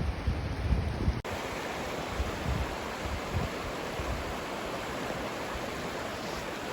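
Steady rush of flowing river water over rapids. Wind rumbles on the microphone for about the first second.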